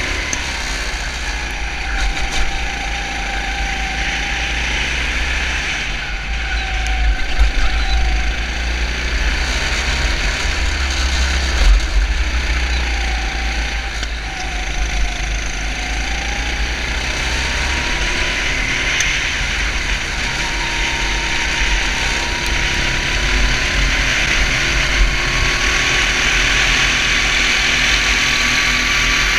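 Engine of a 250 cc four-stroke kart heard onboard while racing, its pitch dropping into corners and climbing again on the straights, with a heavy wind rumble on the microphone.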